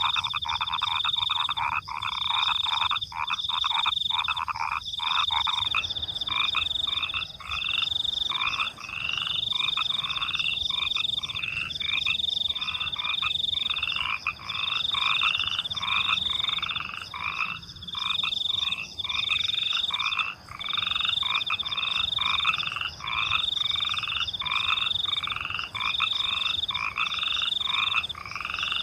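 Chorus of frogs croaking at night, quick calls repeating without pause, over a steady high-pitched trill of crickets.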